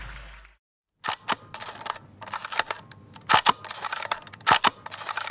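Live-room noise fades out, and after a short silence come the glitchy static crackles and sharp irregular clicks of a video outro sting, with a few louder hits.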